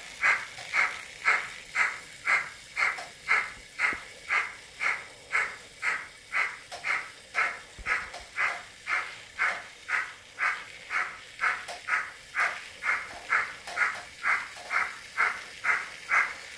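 Digital sound from a Märklin BR 23 (DA 800) model steam locomotive playing steam-engine chuffs at an even pace of about two a second as the model runs.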